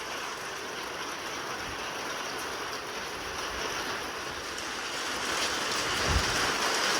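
Steady rain from a squall line, an even hiss that grows a little louder near the end, with one low thump about six seconds in.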